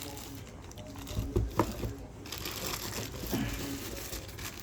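Packaging being handled while PC parts are unboxed: plastic crinkling, with a couple of sharp knocks about a second and a half in.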